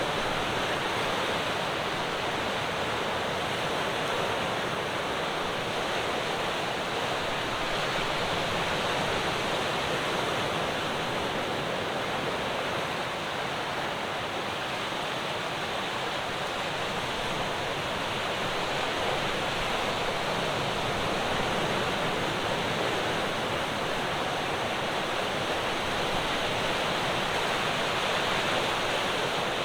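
Ocean surf breaking on the shore, heard as a steady, even rush of water with no separate wave crashes standing out.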